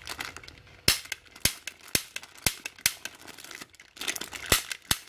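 March Snipper toy pellet pistol making sharp plastic clicks as its trigger is pulled repeatedly: five about half a second apart, a pause, then two more near the end. Its plastic wrapping crinkles briefly between them.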